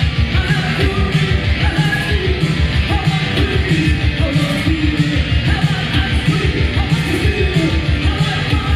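Loud rock music with a singing voice over a fast, steady drum-and-bass beat.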